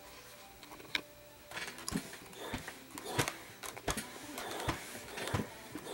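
Clothes iron pushed and lifted over cotton fabric during pressing: irregular rustling scrapes and light knocks, coming every half second or so from about a second and a half in.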